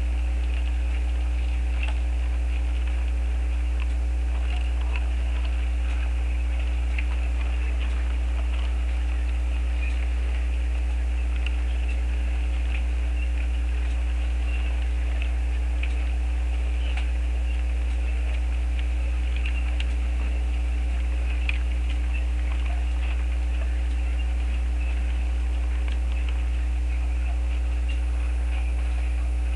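Steady low electrical hum with faint, irregular ticking and crackling, from an HO-scale model railroad running a freight train at slow speed.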